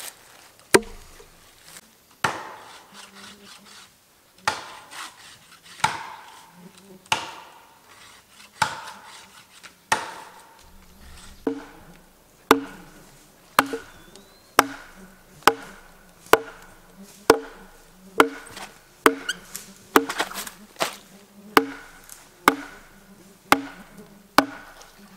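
Repeated sharp wooden strikes of a hatchet being driven into a log with a wooden club, scoring the bark lengthwise so it can be peeled. They come about every second and a half at first, then about one a second, each later strike ringing briefly.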